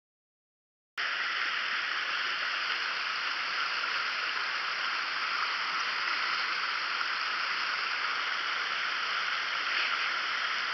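Shallow mountain trout stream rushing over rocks in a riffle, a steady rush of water. It cuts in suddenly about a second in, after silence.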